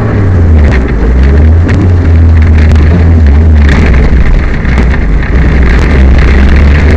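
Loud in-cabin engine noise from a Peugeot 205 rally car driving a stage under load, a low steady drone that shifts slightly in pitch, with scattered knocks and rattles from the car over the stage. The engine has a misfire.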